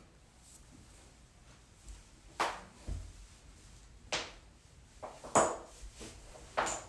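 Joints cracking under a chiropractic adjustment: a series of about five sharp, short pops spread over a few seconds, the loudest a little past the middle.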